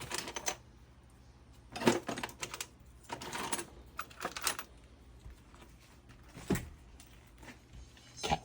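Irregular plastic clicks and knocks of trim push-pin clips being handled and pressed into a Jeep TJ Wrangler door panel, the loudest knock a little under two seconds in.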